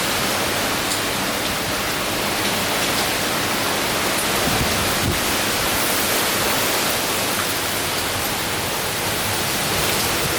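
Steady rush of hurricane wind and driven rain, an even, unbroken roar of noise.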